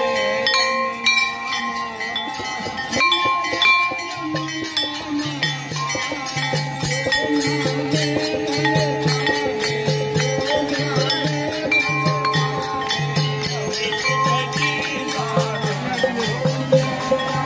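Instrumental passage of Hindu aarti devotional music, with no singing. Long held melody notes over rapid, even bell strokes, and a drum beat of about two strokes a second that joins about four seconds in.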